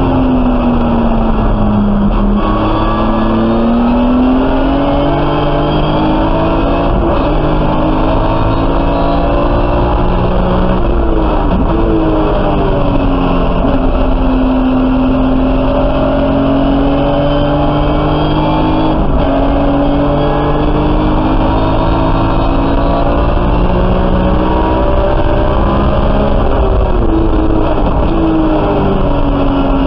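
BMW E46 M3 race car's 3.5-litre stroker S54 straight-six heard from inside the cabin at racing speed. The revs climb under throttle and fall away under braking, again and again, with gear changes between third and fourth.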